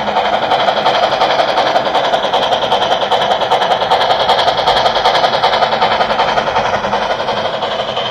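HO scale model train (WAP-7 locomotive with LHB coaches) running along the track: a steady rolling rattle with fast, even clicking of the wheels.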